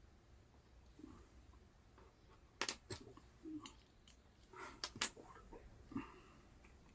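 Clicks and taps of small plastic and carbon-fibre parts of a Yokomo MD1.0 RC car kit being handled and fitted together by hand. They come in a few scattered bursts from about two and a half seconds in.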